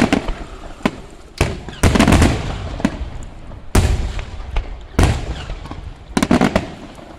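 Fireworks bursting overhead: a string of loud, sharp bangs, some in quick clusters of several, each followed by a rumbling echo.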